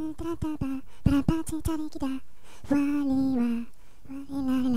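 A cappella vocal music: a voice sings short, clipped notes broken by sharp clicks, then a longer held note that sinks slightly in pitch, and starts another sung phrase near the end.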